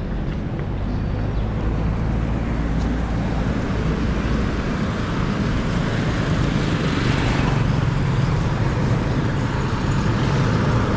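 Road traffic: a steady rumble of vehicles running past, swelling slightly about seven seconds in.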